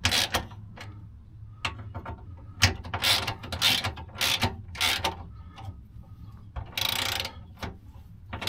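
Hand socket ratchet clicking in a series of short, irregular strokes as nuts are run down on a spare tire carrier's mounting bolts, one longer stroke about seven seconds in.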